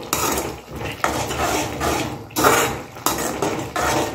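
Metal spoon stirring and scraping through wet tomato-onion gravy in an aluminium kadai, in strokes about once a second.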